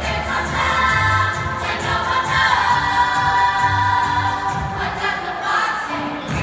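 Youth vocal ensemble singing in chorus over a backing track with a steady beat. The beat drops out about two-thirds of the way through while the voices hold a long note.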